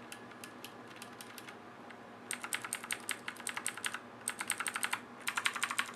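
Typing on a Redragon Kumara K552 mechanical keyboard with clicky blue switches. A few light key clicks come first, then rapid runs of crisp clicks in three bursts with short breaks between them.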